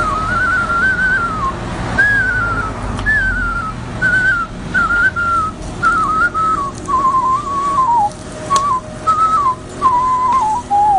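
A man whistling a tune with his lips, one clear tone in sliding phrases. Partway through, the phrases break into short notes, about two a second, that step lower in pitch.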